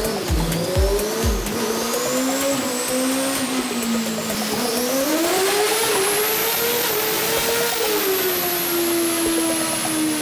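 Formula Student race car engine running on a rolling-road dynamometer, its pitch climbing and easing slowly as the revs are raised and let off, with a thin high whine above it. A few low thumps sound in the first second and a half.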